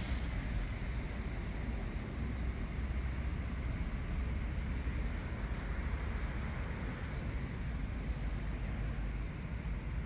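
Steady low outdoor rumble, like distant traffic or wind, with three faint short high chirps about four, seven and nine seconds in.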